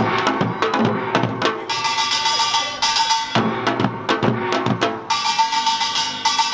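Korean samulnori percussion ensemble playing a Yeongnam-style rhythm: janggu hourglass drums and buk barrel drums beat dense strokes while the kkwaenggwari small gong clangs and the jing large gong rings. The metal clangour swells and drops back in waves, about every three seconds.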